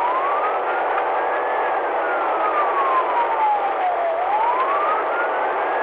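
Police car siren wailing: a slow rise, a long fall and a rise again, over steady road noise of a car at highway speed.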